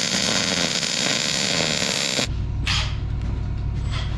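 MIG welder arc crackling and hissing steadily as a bead is run along a steel frame rail. It cuts off suddenly a little over two seconds in, leaving a low hum.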